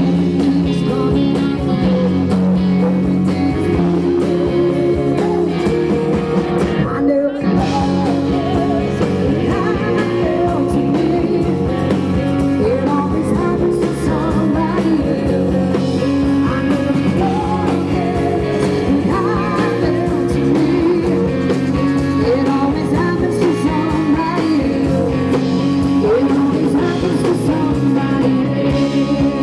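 Live rock band playing an instrumental passage: electric guitar, bass guitar and drum kit, with a wavering melodic line over a steady backing and a brief break about seven seconds in.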